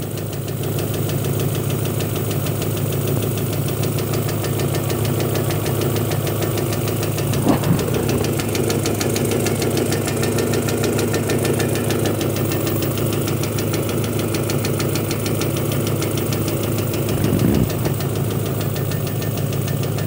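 Honda H22A DOHC VTEC four-cylinder idling steadily with a rapid, even tapping. The owner traces the tap to a faulty detonation knock sensor, not to valve clearance.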